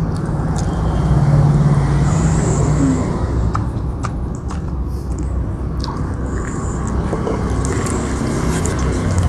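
A man biting and chewing a raw green chilli, with scattered short crunches, over a steady low rumble. A closed-mouth hum from about one to three seconds in.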